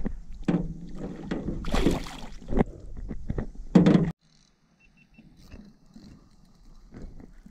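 Knocks and thumps on an aluminum jon boat and a splash of water while a catfish is handled and let go over the side. The sound cuts off sharply about four seconds in, leaving only faint water and boat sounds.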